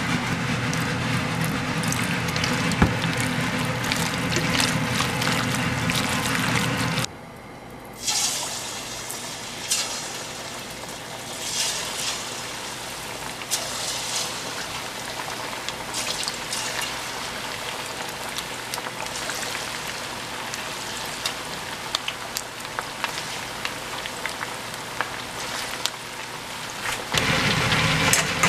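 Hands working chicken pieces through flour in a stainless bowl, with a low rumble under it. Then coated chicken pieces are dropped into hot oil in a wok and deep-fry with a steady sizzle and fine crackling, growing louder near the end.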